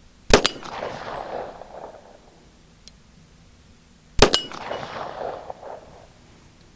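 Two shots from a Springfield Armory TRP 1911 .45 ACP pistol, about four seconds apart, firing 200-grain lead semi-wadcutter handloads over Accurate No. 2 powder. Each shot is a sharp crack followed by a ringing echo that dies away over a second or so.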